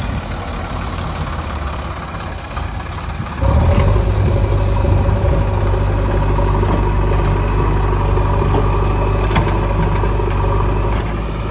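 Heavy diesel engine running, then revving up sharply about three and a half seconds in and holding at the higher speed, as when working earth-moving machinery goes under load.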